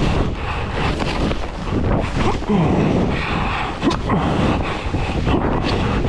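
Wind rushing and buffeting over the microphone as a skier moves fast through powder, a loud, uneven rushing noise with small knocks and scrapes through it.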